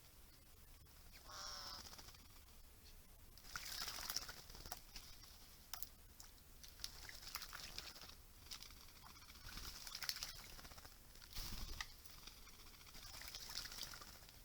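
Faint wild animal sounds: a short bird call about a second and a half in, with several hissy high-pitched bursts and scattered light clicks and rustles.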